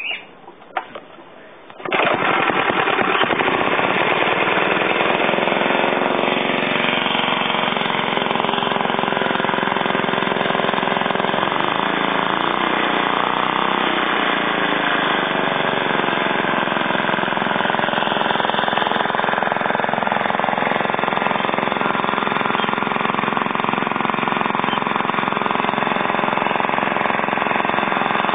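Small old Suffolk Iron Foundry single-cylinder four-stroke engine pull-started from cold: a quick pull of the recoil starter and a couple of sputters, then it catches about two seconds in and runs steadily, its note shifting slightly around the middle.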